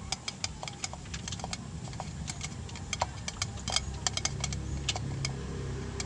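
Irregular light clicks and taps, several a second, from PVC plastic and a knife being handled and waved over a gas stove flame. Underneath is a low steady rumble that grows louder about four seconds in.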